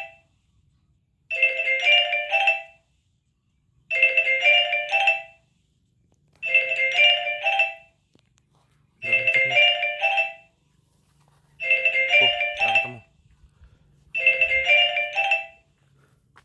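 Mobile phone ringtone for an incoming call: a short chiming melody of about a second and a half, repeating about six times with quiet gaps between.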